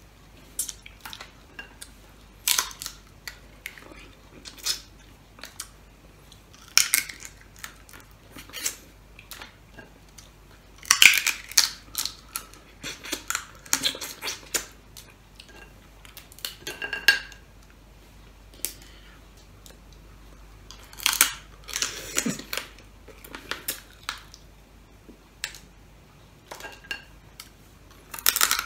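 Steamed crab shell being cracked and bitten open by hand and teeth, with chewing and sucking: irregular sharp crackles and crunches, with two louder bursts of cracking.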